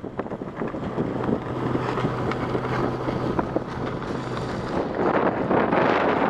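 Wind buffeting the microphone on a sailboat under way. A low steady hum runs underneath from about one second in until about four and a half seconds in.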